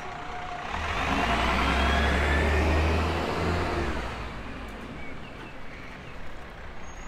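An engine passes close by: a low motor hum and rushing noise swell up about a second in, peak, and fade away a couple of seconds later.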